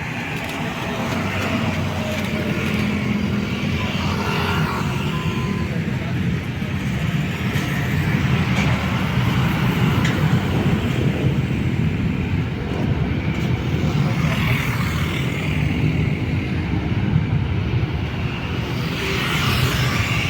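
Steady, continuous engine rumble, deep and even, with a hiss of noise above it.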